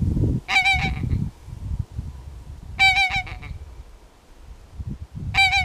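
Goose honking calls, three of them about two and a half seconds apart, each a short run of quick honks. Under them is a low rumbling noise, loudest in the first second.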